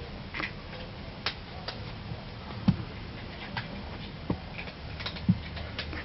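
Irregular light clicks and taps, with a few short soft thumps, the loudest about two and a half seconds in.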